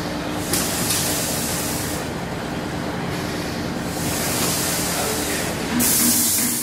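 Pneumatic form-fill-seal packaging machine running: a steady mechanical hum with repeated hisses of compressed air. The loudest hiss comes near the end.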